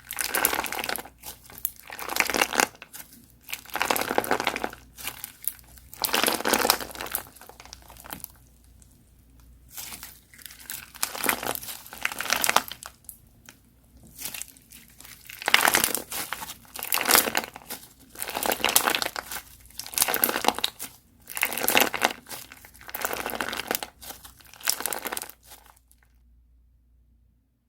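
Crunchy slime being squished by hand, crackling and crinkling in repeated bursts about a second long each; it stops a couple of seconds before the end.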